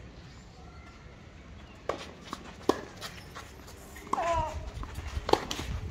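Tennis ball being struck with rackets during a doubles rally, a handful of sharp pocks a second or so apart. About four seconds in, a player gives a short shout with a falling pitch.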